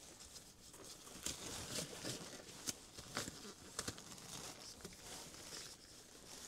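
Black disposable gloves being pulled on and worked over the fingers: faint, irregular rustling of the thin rubber with scattered small crackles.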